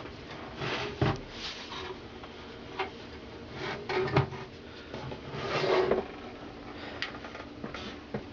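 Handling noises from a small box fan being moved and looked over: scattered rubbing and scraping with a few sharp knocks.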